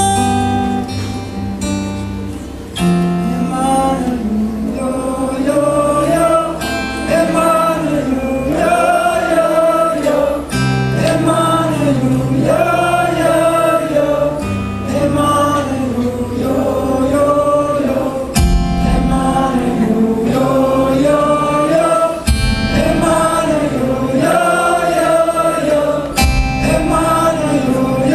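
Live acoustic music: a wordless sung melody, possibly with many voices, over sustained acoustic guitar chords. In the second half, deep thumps fall about every four seconds.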